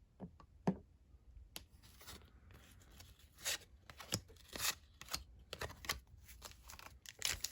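1990-91 NBA Hoops cardboard trading cards being flipped through by hand: irregular quick snaps and slides of card against card, a dozen or more.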